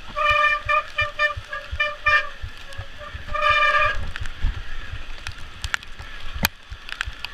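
Wet disc brakes on a Trek Slash 8 mountain bike squealing as the rider brakes on the descent: a quick series of short, pitched honks for about two seconds, then one longer squeal a little after the middle. Underneath, the bike rattles and knocks over the rough dirt trail, with a sharp click near the end.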